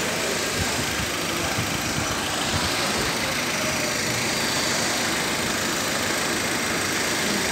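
Hyundai Creta engine idling steadily shortly after being started.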